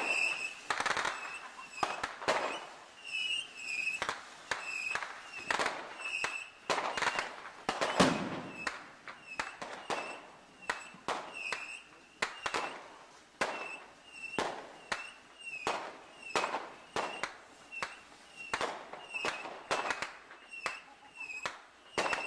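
Small consumer fireworks going off in a long run of sharp pops, roughly one or two a second, with short high squeals among them and one louder bang about 8 seconds in.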